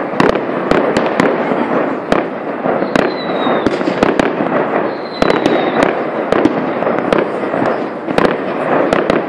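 Fireworks display: aerial shells bursting overhead in a rapid, irregular series of sharp bangs over a continuous crackling din, with two brief falling whistles about three and five seconds in.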